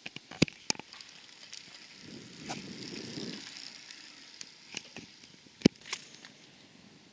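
A racing bicycle passing close on a concrete road, heard as a brief soft rush of tyre noise, among scattered sharp clicks and knocks; the loudest click comes near the end.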